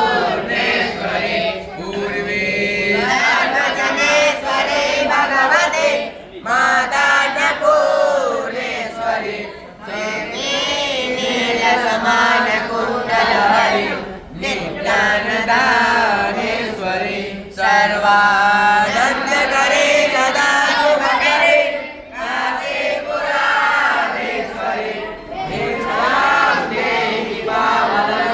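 A group of voices chanting a Hindu devotional hymn in unison, phrase after phrase, with a brief break for breath every few seconds.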